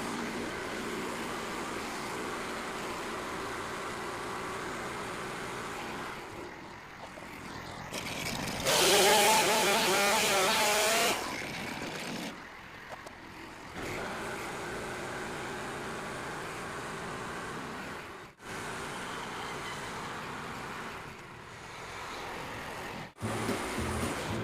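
Portable bandsaw sawmill's engine running with the band blade cutting through white pine, louder and wavering in pitch for about two seconds near the middle. The sound breaks off abruptly twice in the second half, and background music with a beat comes in near the end.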